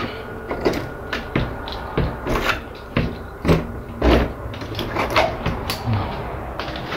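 Metal doorknob on an old wooden door being turned and rattled while the door is pushed, knocking in its frame several times at uneven intervals without opening: the door is stuck shut.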